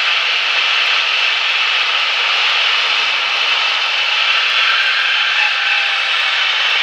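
Steady drone of a light Cessna's four-cylinder piston engine and rushing air, heard inside the cockpit as the plane lands.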